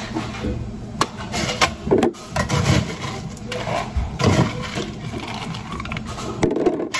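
Work clatter at a coffee bar: sharp knocks and clicks with stretches of scraping and rattling, over a steady low hum that fades about two seconds in.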